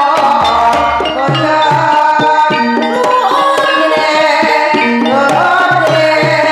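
Javanese gamelan music accompanying a kuda kepang (jaranan/ebeg) dance: kendang hand drums beating over ringing pitched gamelan notes, with a singer's voice.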